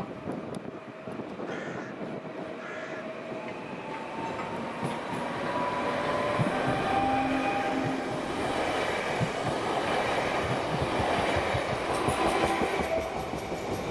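PESA Elf EN76 electric multiple unit approaching and running past along the platform, with a steady whine and wheel clicks over the rail joints. It grows louder from about four seconds in.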